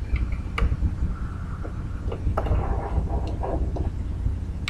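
A few light clicks and a short rattling scrape from a screwdriver and pliers tightening a small M3 screw and lock nut, over a steady low rumble.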